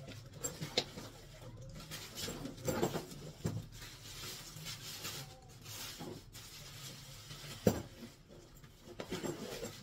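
Plastic wrapping rustling and crinkling as an electric demolition hammer is unwrapped and lifted, with scattered knocks of the tool against its hard plastic carry case; the loudest knock comes about three-quarters of the way through.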